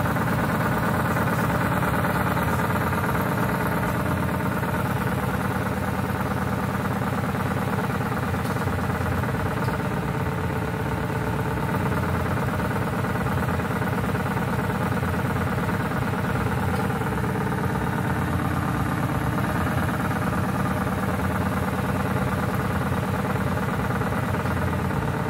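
Ford Crown Victoria's 4.6-litre two-valve V8 running at a steady fast idle just after a cold start, through long-tube headers and high-flow cats with the electric exhaust cutout closed.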